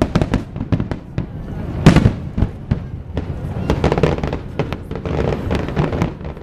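Aerial fireworks bursting in quick succession: a loud bang about two seconds in, amid many rapid crackling pops over a continuous low rumble.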